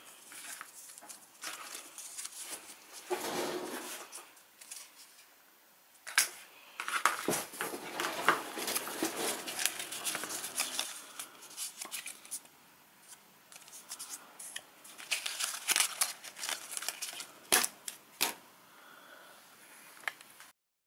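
Thin white plastic window-blind slats and cut plastic plant labels being handled: irregular clicks, taps and rustling as the strips knock and slide against each other.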